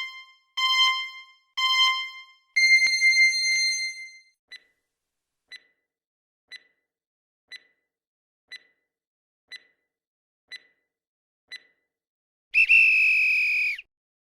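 Quiz countdown timer sound effect. Three short electronic beeps about a second apart are followed by a longer, higher beep. Then come eight soft ticks, one a second, and near the end a loud electronic tone lasting about a second signals that time is up.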